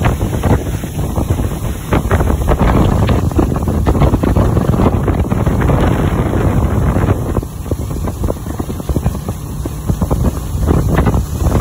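Wind buffeting a phone's microphone aboard a moving motorboat that is towing a water-skier, over the boat's engine and the rush of its wake. The sound is a loud, crackly rumble.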